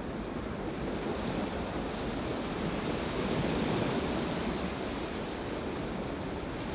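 Ocean surf: waves breaking and washing in as a steady rush, swelling slightly midway.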